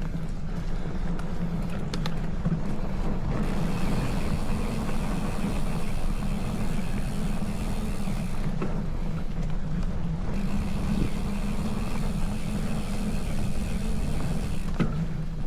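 Wind buffeting the microphone during a bicycle ride, a steady low rumble, with a higher hiss that sets in a few seconds in, drops out for a couple of seconds in the middle and stops just before the end.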